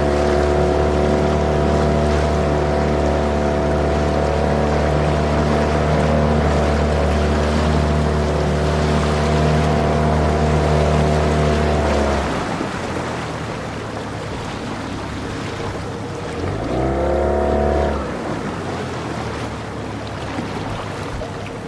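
A motorboat engine running steadily that drops away about twelve seconds in, then revs up again briefly for a second or two and falls off, with wind and water noise all through.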